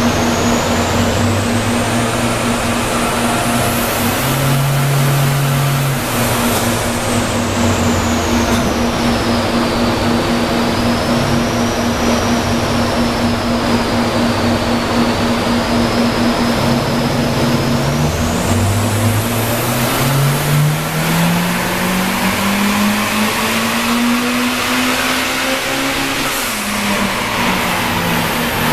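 Turbocharged Toyota 2ZZ-GE 1.8-litre four-cylinder engine running on a chassis dyno. At first the revs hold steady and step up and down. About two-thirds of the way through they climb steadily in a pull and fall away near the end. A high whine rises and falls with the revs.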